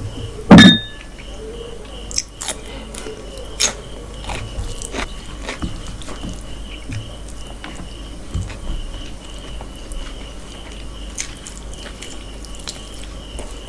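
Close-miked eating: chewing and biting into mutton and rice, with scattered wet clicks and smacks. One loud knock about half a second in, over a faint steady high tone.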